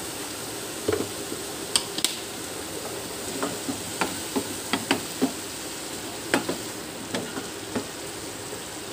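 Wooden spatula stirring and tossing shredded cabbage and capsicum in a steel frying pan, with irregular knocks and scrapes against the pan over a steady sizzle of frying.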